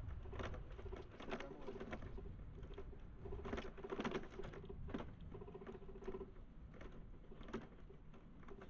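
Irregular light clicking and rattling, most likely from a bicycle rolling along a paved path, over a low rumble. The clicks cluster most loudly about halfway through, and a faint hum comes and goes.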